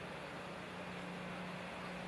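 Steady hiss of hurricane wind and rain over a flooded street, with a low steady hum beneath.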